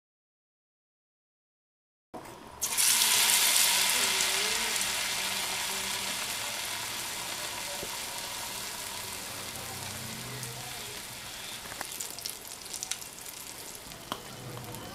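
About two seconds of silence, then a battered eggplant slice hits hot oil in a small aluminium pan: a sudden loud sizzle that slowly dies down as it keeps frying.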